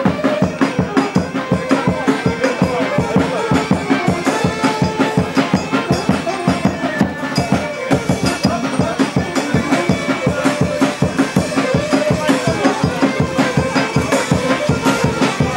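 Traditional Romanian folk music: a drum keeps a steady, quick beat with rattling percussion, and a melody line wanders over it.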